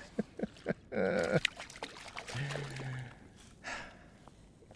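Fixed-spool spinning reel being wound in, a run of quick ticks about four a second that stops about a second in. Then water pours and drips as a small codling is brought up out of the sea, with a short low hum partway through.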